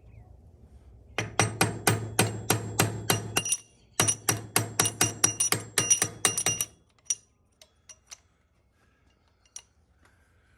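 Rapid light metal-on-metal tapping on a motorcycle rear shock to work its dust cover off: two runs of about five ringing taps a second, a short pause between them, then a few scattered clicks.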